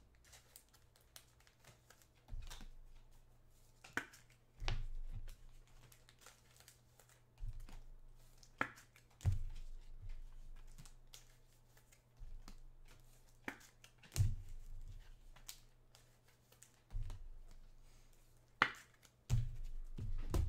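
Hands opening and handling football trading-card packs: wrapper crinkling and tearing, with irregular sharp clicks and soft thumps of cards and packs set down on a table.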